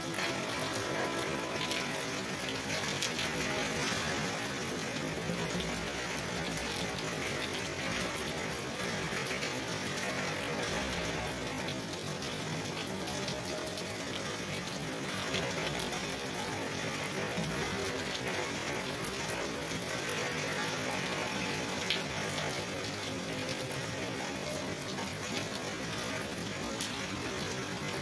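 Steady rain falling: an even hiss with scattered ticks of drops.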